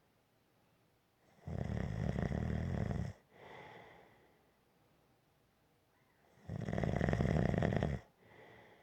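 Snoring in a slow, even rhythm: two long, loud snores about five seconds apart, each followed by a shorter, softer breath.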